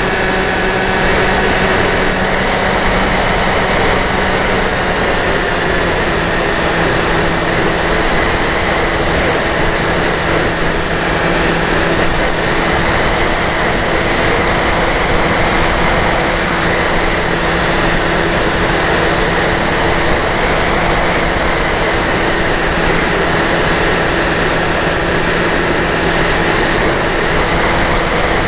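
Dynam Hawk Sky RC plane's electric motor and propeller, heard from the onboard camera in flight: a steady, loud drone mixed with wind rush. Its tone shifts slightly about six seconds in.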